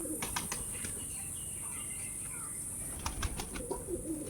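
Pigeons flapping their wings in two short bursts of sharp wing claps, one just after the start and one about three seconds in, with soft cooing at the start and near the end.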